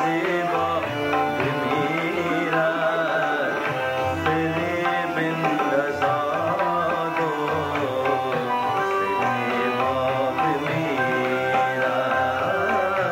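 Afghan music: piano playing a melodic line over tabla drumming, continuous and steady in level.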